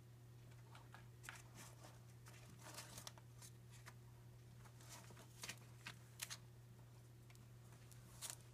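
Faint, scattered rustling and crinkling of trash as a cat rummages head-down in a plastic wastebasket, over a steady low hum.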